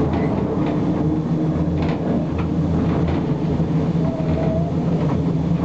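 Class 03 diesel shunter's Gardner eight-cylinder engine running steadily with a deep hum as the locomotive moves along, heard inside the cab, with a few short knocks and rattles from the running gear and cab.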